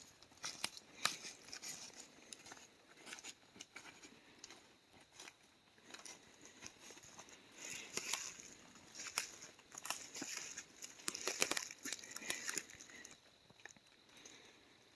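Footsteps pushing through dense brush and dry leaf litter, with crunching, crackling and snapping twigs coming at irregular moments, busiest in the second half.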